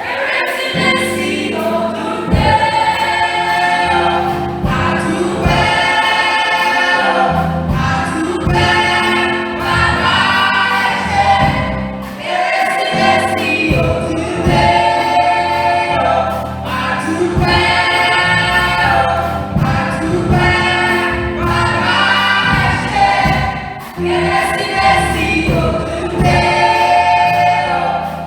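Church choir singing a gospel-style song in long held phrases over instrumental accompaniment.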